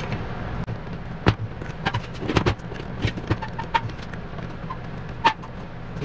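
Irregular metallic clicks and taps of pliers working on the housing and bracket of a window air conditioner's fan motor, over a steady low hum.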